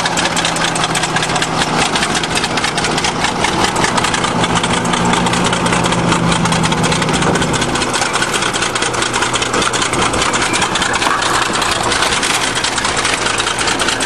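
Engine of a 20-ton crawler bulldozer running as the machine drives forward and climbs onto a car, with a fast, even clatter throughout.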